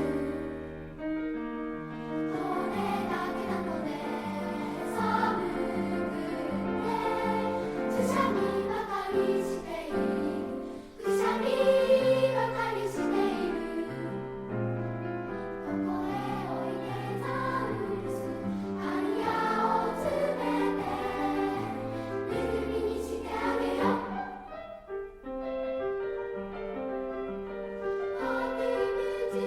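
Children's choir singing a song in three-part harmony, dipping briefly about three quarters of the way in before a softer passage.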